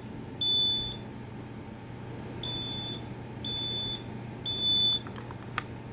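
2003 Kidde dual-sensor (ionization and photoelectric) smoke alarm sounding on test in the three-beep pattern: high-pitched half-second beeps, the last beep of one round, a pause, then a full round of three.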